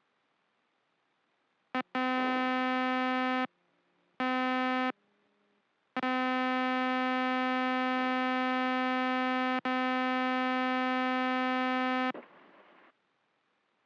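Stall warning tone of a Flight Design CTSW light sport aircraft heard through the intercom headset: one steady electronic note sounding in three bursts, short ones about two seconds in and again about four seconds in, then a long one of about six seconds. It is the sign of the wing nearing the stall in the landing flare. A short hiss follows just after the tone cuts off.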